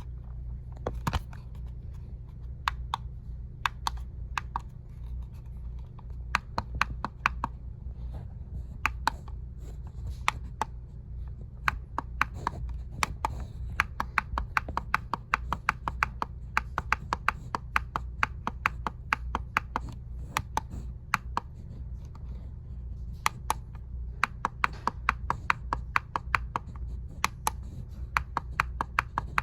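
Sharp plastic clicks from the buttons of a wireless-charging alarm clock being pressed, irregular and often in quick runs of several a second, as the clock is set up. A steady low hum lies underneath.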